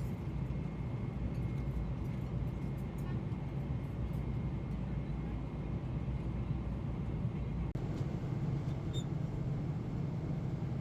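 Steady low rumble of airliner cabin noise from a Boeing 747-8 in flight, with a faint steady whine above it; it cuts out for an instant about three-quarters of the way through.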